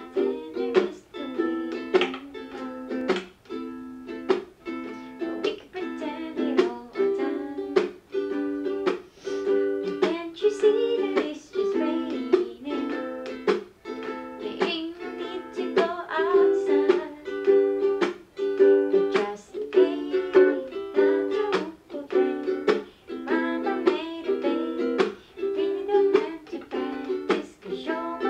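Background music played on a plucked string instrument, with a steady rhythm of strokes about twice a second.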